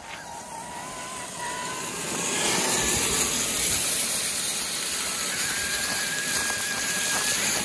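Traxxas X-Maxx RC monster truck driving, its electric motor and drivetrain whining while the rake tied behind it drags and scrapes over gravel and leaves. The sound grows louder about two seconds in.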